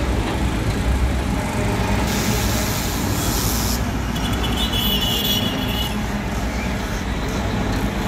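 Heavy trucks passing on a road, their diesel engines rumbling steadily. There is a brief hiss about two seconds in and a high squeal about four seconds in, lasting a little over a second.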